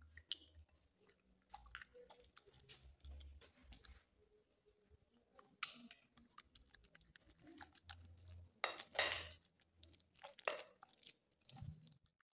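A utensil working a raw egg into thick churro dough in a glass bowl: irregular wet squelching with clicks against the glass, loudest about nine seconds in.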